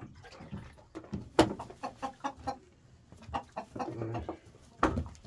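Roosters clucking in short, broken calls. A sharp knock comes about a second and a half in, and another near the end.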